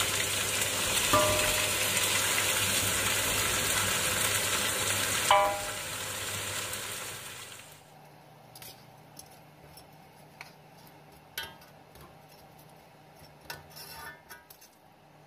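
Fried tuna pieces tipped into a wok of hot oil and vegetables, the oil sizzling loudly, with two ringing metallic clinks against the wok. About seven seconds in the sizzle dies away, leaving only scattered taps and scrapes of a metal spatula in the wok.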